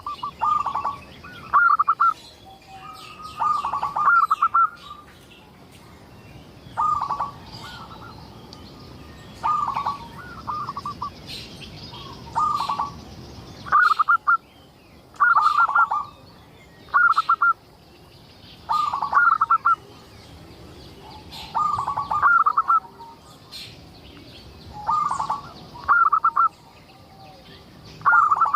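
Zebra dove (perkutut) cooing: short stuttering, trilled coo phrases repeated about every one to two seconds, with faint high chirping behind.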